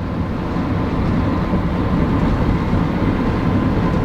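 Steady road noise inside a moving car's cabin: tyres and engine rumbling evenly.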